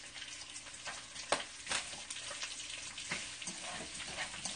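Sliced, already-cooked bossam pork (boiled pork belly) sizzling in oil in a frying pan as it is stir-fried, with scattered sharp clicks of the stirring utensil against the pan. The loudest click comes a little over a second in.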